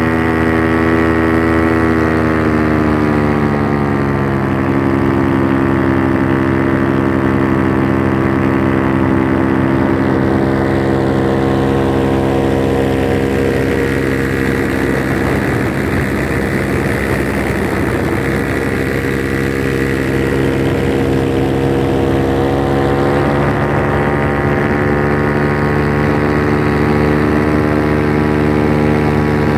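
Paramotor engine and propeller running steadily in flight. Its pitch drops a little about two to four seconds in as the throttle eases, turns rougher and noisier in the middle, then rises again about three-quarters of the way through.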